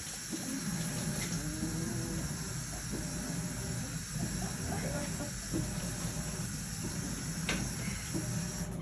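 Running washing machine: a steady hiss of water filling over a low hum, cutting off shortly before the end. Puppies give faint, brief whimpers through it.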